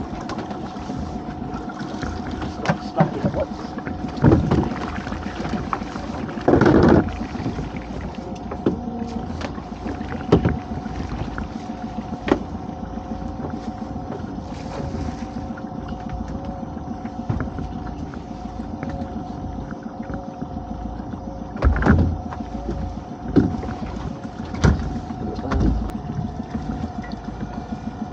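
Small fishing boat's motor running steadily with a held hum, under a scatter of knocks and thumps of rope and gear being handled against the hull.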